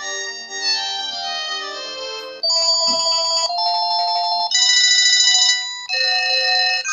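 Panasonic cordless phone playing electronic ringtones: a polyphonic synthesised melody, then, about two and a half seconds in, a string of different beeping and trilling tone patterns, each about a second long.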